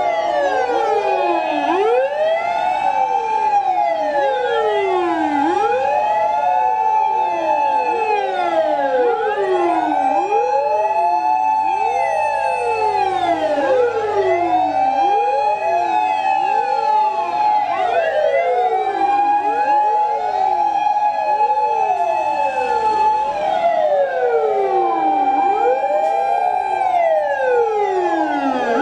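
Fire engine sirens from a passing convoy, many at once: each wails up to a held high tone and slides back down, the wails overlapping one after another without a break.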